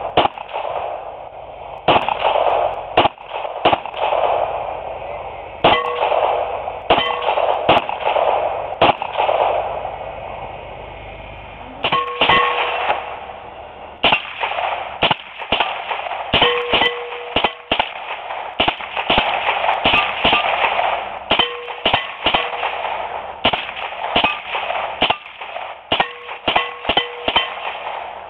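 Repeated single gunshots: shots from a Smith & Wesson .22 pistol a second or so apart in the first part, then after a short pause a semi-automatic rifle fired in quick succession. Several shots are followed by a brief metallic ring.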